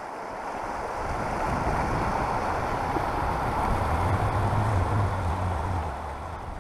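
Fast-flowing mountain river, the Highwood, rushing over shallow gravel riffles in a steady hiss of water that swells in over the first second or two. Wind rumbles on the microphone, strongest about four to six seconds in.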